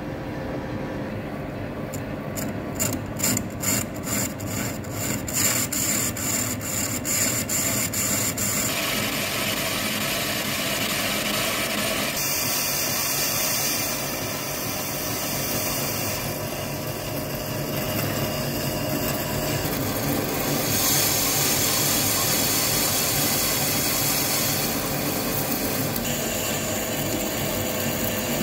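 Metal lathe turning the steel rod of a hydraulic ejector cylinder while a cutting tool machines out a crack where the rod joins its eye, a continuous scraping cutting sound. For the first several seconds the cut is broken by regular ticks, about three or four a second and quickening, before it runs steadily.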